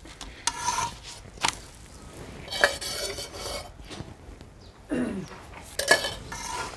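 Metal utensils clinking and scraping against an iron tawa and steel dishes, with several sharp clinks a second or more apart.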